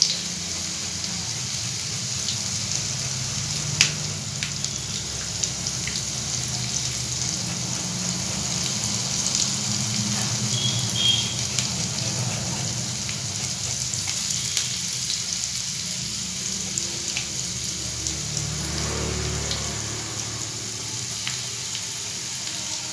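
Hot oil sizzling steadily in a kadai as tadka spices fry (cumin and mustard seeds, bay leaves, dried red chilli, green garlic and grated ginger), with a few sharp crackles and a low hum underneath.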